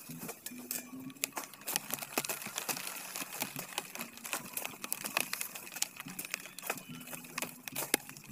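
Machete cutting sugarcane stalks amid the crackle and rustle of dry cane leaves: many sharp cracks and snaps, irregular and close together.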